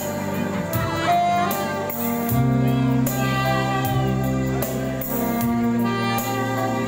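Live band playing a pop ballad: singing over guitar and saxophone, with a steady cymbal beat.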